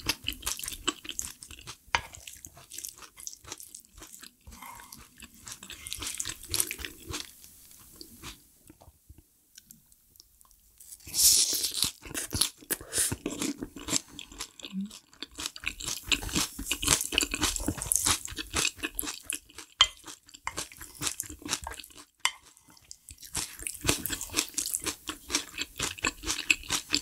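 A person chewing and crunching food close to the microphone: wet, irregular crackles and mouth sounds of a Korean home meal, with a short pause about nine seconds in and a louder burst of crunching just after it.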